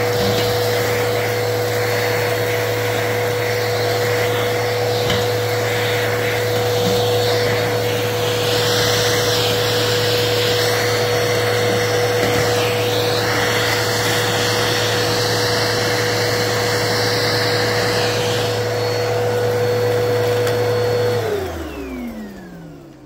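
Vacuum cleaner running steadily with a bristle dusting brush on its hose, the airflow sound shifting as the brush is worked over a plastic surface picking up small debris. About 21 seconds in the motor is switched off and winds down with a falling whine.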